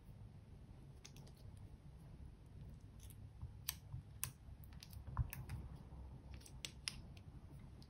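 Light, sharp clicks and taps at uneven intervals, the loudest about five seconds in, from a plastic spatula scraping pink makeup out of small tubes and dabbing it into clear slime in glass dishes.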